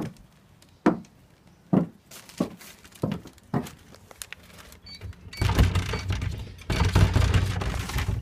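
Footsteps climbing wooden stairs, a sharp knock roughly every second. In the last three seconds a louder rattling and rubbing noise starts at a wooden slatted door.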